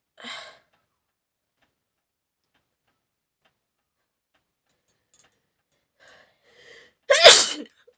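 A short breathy sniff, then about seven seconds in a single loud, sudden sneeze, set off by tickling the nose with a blade of durba grass.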